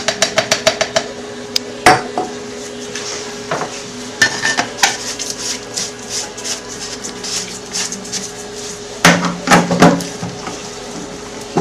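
Glass clinking and tapping as powder is emptied from a glass graduated cylinder into the glass jar of a homogenizer mixer. There is a quick run of light taps at first, then a louder knock, scattered ticks, and a cluster of louder knocks near the end.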